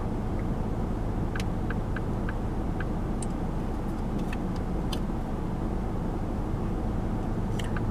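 Steady low hum of a car idling, heard from inside the cabin, with a few faint ticks as baseball cards are handled.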